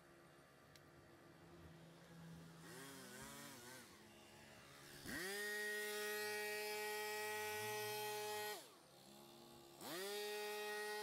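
Small handheld power tool motor spun up to a steady high speed in bursts: a wavering rev about three seconds in, then a steady run of about three and a half seconds that winds down in pitch, and a second run starting near the end.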